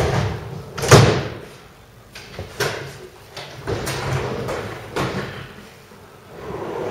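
A heavy thud about a second in, followed by several lighter knocks and clatters.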